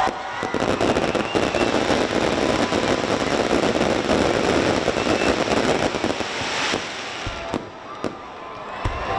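Fireworks: a dense run of crackling pops for about seven seconds, then separate sharp bangs about a second apart.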